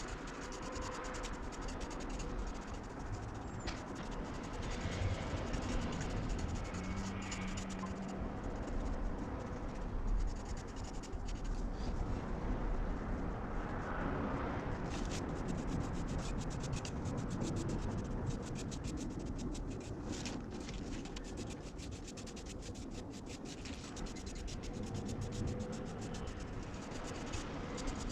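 Steady scratching and rubbing of something worked by hand over a surface, with many fine ticks thickening in the middle and latter part.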